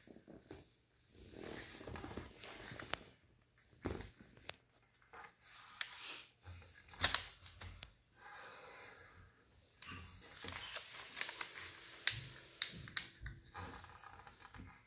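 A sheet of origami paper being folded by hand: soft rustling as it is handled, with scattered short clicks and taps as the creases are pressed flat against the tabletop, the sharpest tick about seven seconds in.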